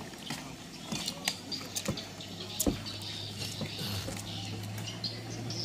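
Dockside clatter around moored speedboats: scattered knocks and clanks from boat hulls and cargo being handled, with a steady low hum coming in a little past halfway and high chirping over it.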